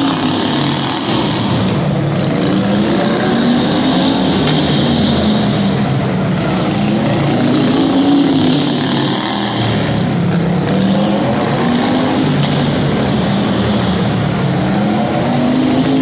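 Engines of several small racing vehicles running laps together, their pitch repeatedly rising and falling as they accelerate down the straights and ease off for the turns, in a large indoor arena.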